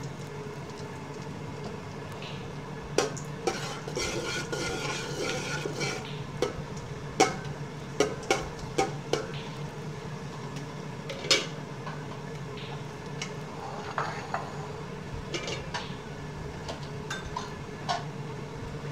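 Metal slotted spoon stirring green cardamom pods in a little oil in a metal cooking pot: irregular sharp clinks of spoon on pot, with a stretch of scraping a few seconds in. A steady low hum runs underneath.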